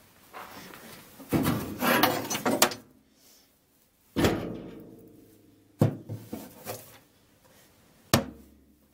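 A stick rustling and scraping through a dry animal nest in a Triumph Spitfire's trunk, then knocking against the sheet-metal trunk floor three times. The first knock, about four seconds in, is the loudest and rings on briefly.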